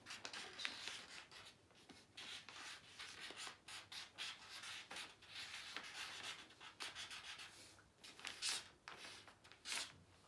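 Pens and felt-tip markers scratching across paper in short, irregular strokes, faint and continuous.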